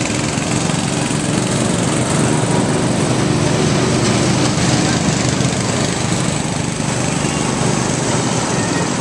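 A small engine running steadily, with a constant hiss over it.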